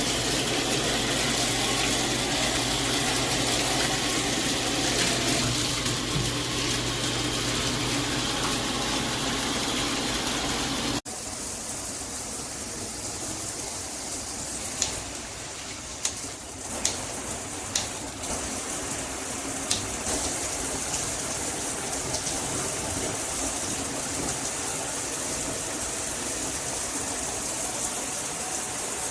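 Shower head spraying water, a steady rush. About 11 seconds in it cuts off suddenly to a quieter steady hiss, with a few sharp clicks.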